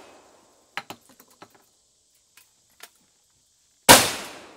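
A few light clicks and knocks of guns being handled, then a single loud revolver shot just under four seconds in, its report trailing off slowly.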